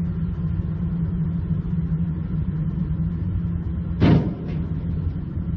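Steady low rumble of a vehicle engine and road noise, with one short loud thump about four seconds in.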